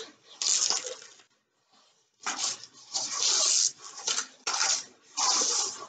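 Diamond painting canvas rustling and crinkling in a series of short bursts as it is handled and smoothed to flatten its wrinkles.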